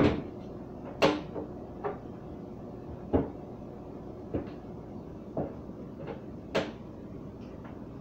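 Refrigerator drawers and containers being handled and knocked about inside an open fridge: about nine irregular knocks and clatters. The sharpest come at the start and about a second in.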